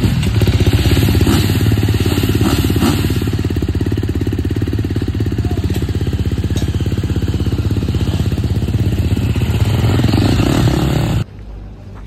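Motocross bike's single-cylinder four-stroke engine running steadily with an even, fast firing pulse. It cuts off abruptly about 11 seconds in, leaving quieter outdoor background.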